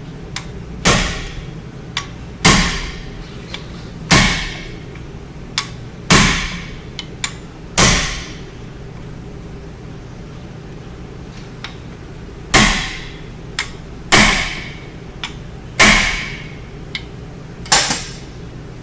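Hammer striking a hand impact driver set in a brake rotor retaining screw, each blow a sharp metallic hit that rings briefly. There are nine heavy blows about every two seconds in two runs, with a pause of about four seconds in the middle and a few lighter taps between, to shock the screw loose.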